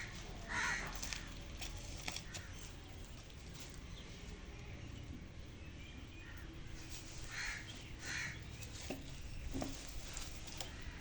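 A few short, harsh animal calls, likely birds, over a steady low outdoor rumble.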